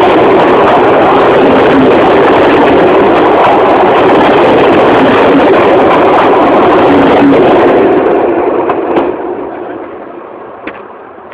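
A train passing close by: a loud, steady rushing rumble that fades away from about eight seconds in as the train moves off, with a few short clicks as it dies down.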